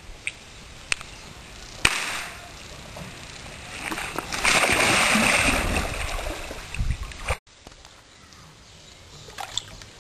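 Swimming-pool water splashing and churning, loudest from about four to seven seconds in, after a single sharp knock about two seconds in.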